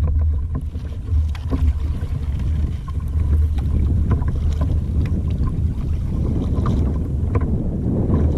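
A kayak on the water: a steady low rumble of wind on the microphone with water against the hull, and scattered light clicks and knocks.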